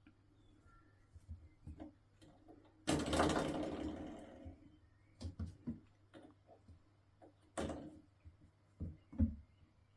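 A door stopper being batted by a cat. About three seconds in it gives a loud twang that rings and dies away over about a second and a half, followed by several shorter, softer twangs and knocks.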